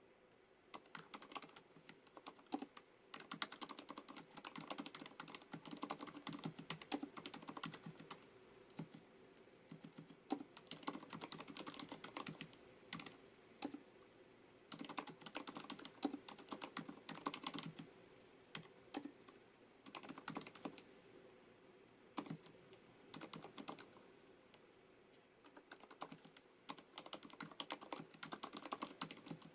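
Typing on a FILCO Majestouch MINILA-R Convertible compact mechanical keyboard with Cherry MX Silent switches: soft, muted keystrokes in quick runs, broken by short pauses.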